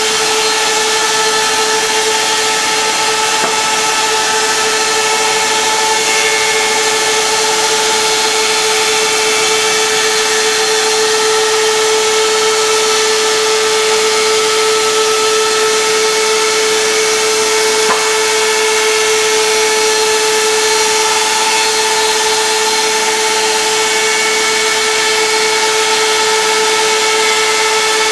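Multiple-spindle vertical slicer running steadily: a constant machine tone over an even rushing noise from its saw spindles, with one small click about two-thirds of the way through.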